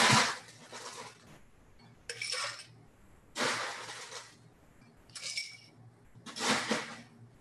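Ice cubes clattering into a mixing glass in about five separate drops, each a short rattle with a glassy clink. The first, at the start, is the loudest.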